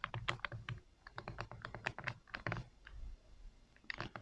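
Buttons on an Android TV box remote being pressed in quick succession: a run of small, sharp clicks at an uneven pace, with short pauses a second in and again near the end.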